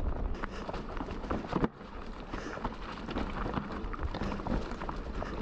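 Mountain bike riding a rough trail: tyres rolling over dirt and stones, with frequent clicks and rattles from the bike.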